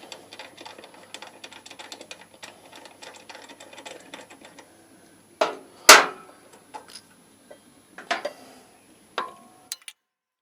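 Metal tools clicking and tapping against a motorcycle's rear brake caliper as the piston is pushed back, followed by a few louder clanks, the loudest about six seconds in. The sound cuts off suddenly near the end.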